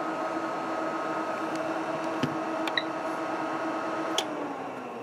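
Dell J727N 2700 W UPS humming steadily with a hiss, with a short high beep and a few clicks as its front-panel buttons are pressed. The hum stops with a click about four seconds in.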